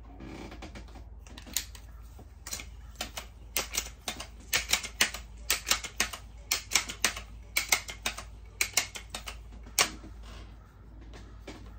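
Seneca Dragonfly MK2 multi-pump air rifle being pumped and shot in fast motion: a rapid, typewriter-like run of sharp mechanical clicks and clacks from the pump lever and action. The clicks are sparse at first, come thick and fast in the middle, and thin out near the end.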